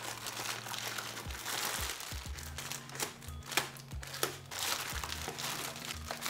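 Plastic courier mailer bag being torn open by hand and its plastic wrapping crinkled, a continuous crackle with many small snaps, with background music playing underneath.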